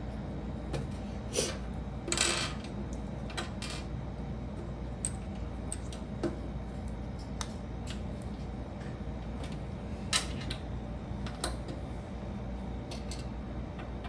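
Small plastic Lego pieces clicking and rattling as they are handled and picked through, as scattered single clicks with a denser rattle about two seconds in, over a steady low hum.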